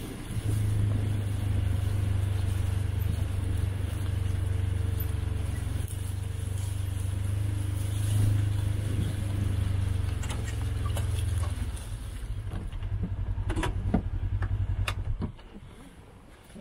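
Vehicle engine running steadily with a low drone while driving, then dropping away sharply near the end, with a few knocks just before.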